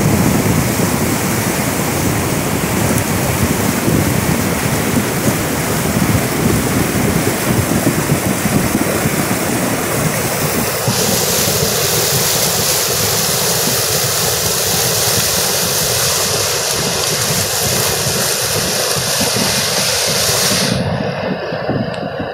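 Muddy floodwater rushing down a swollen mountain river in a loud, steady torrent, with wind buffeting the microphone. About halfway through the sound turns brighter and hissier, and it thins out shortly before the end.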